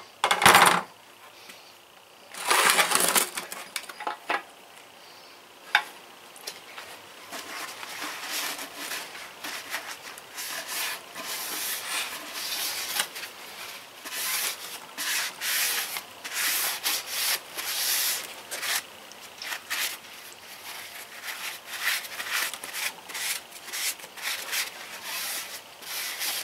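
Rhythmic hand rubbing strokes, like sanding, about one a second, after a few knocks and a short scrape in the first few seconds.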